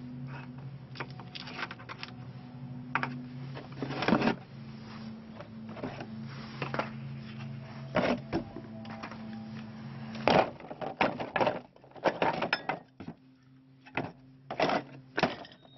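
Hard cast-resin orgonite pieces knocking and clacking against each other, a metal muffin-tin mould and a metal tray as they are handled and turned out. The sharp knocks and scrapes come irregularly, some in quick clusters, and are loudest in the second half. A steady low hum runs underneath.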